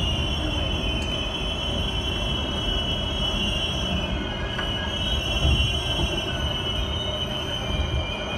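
New York City subway car running, heard from inside the car: a long, high metallic squeal that wavers slightly in pitch, over the steady low rumble of the train.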